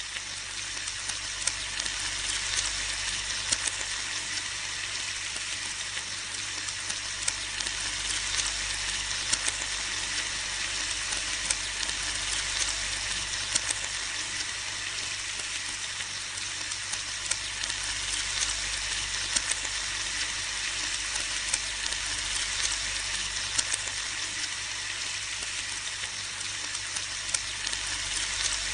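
Bacon frying in a pan: a steady hissing sizzle with frequent sharp pops and crackles of spitting fat.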